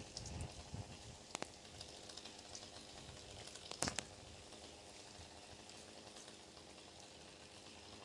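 Faint pattering with a few sharp ticks, about one and a half and four seconds in: bits of bark and wood falling from the top of a tall Douglas fir and landing around the listener.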